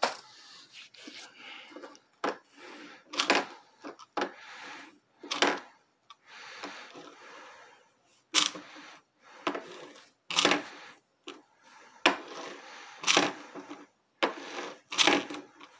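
Small plastic Happy Meal toy car (Sonic in a red car) pushed and rolled by hand across a wooden dresser top: short scraping rattles, roughly one a second, louder after the middle.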